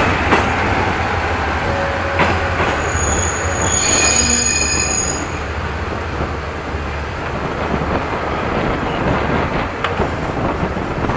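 Passenger train rolling slowly over yard tracks, heard from an open carriage window: a steady rumble of steel wheels on rail with a few sharp clacks over joints and points. About three seconds in, a high ringing wheel squeal sounds for about two seconds.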